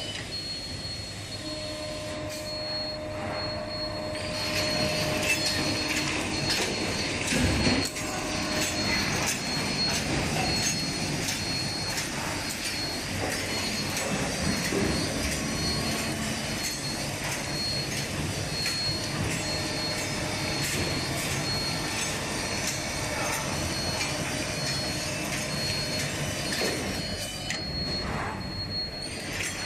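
Automatic plastic cutlery flow-wrap packing machine with a robotic feeder running, making a steady mechanical clatter of many small clicks and rattles. A thin steady high tone runs through it, and one louder knock comes about seven seconds in.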